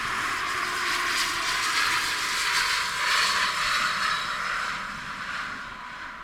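Bombardier Challenger 300 business jet's turbofan engines passing on landing: steady jet noise with a thin high whine, fading away near the end.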